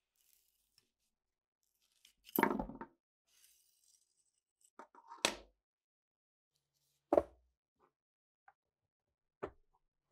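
Rusty steel parts of a PTRD anti-tank rifle's bolt and receiver being handled: four separate metallic clacks and scrapes. The first and longest comes about two and a half seconds in, and the others near five, seven and nine and a half seconds.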